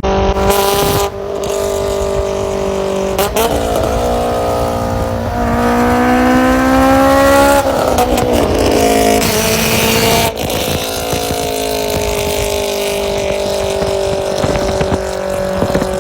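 Honda S2000 inline-four engine running hard at high revs, its pitch climbing steeply about midway, dropping back, then slowly falling in the second half. The sound is broken by several abrupt cuts between short clips.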